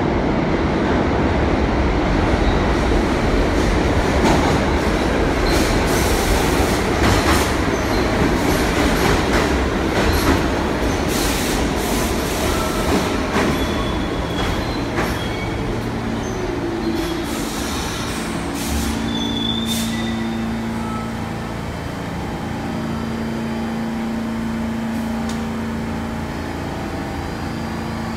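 R46 New York City subway train pulling into an underground station: a loud rumble of steel wheels on rail with sharp clicks over the rail joints. It eases off as the train brakes and slows, leaving a steady motor hum and a brief high wheel squeal about two-thirds of the way through.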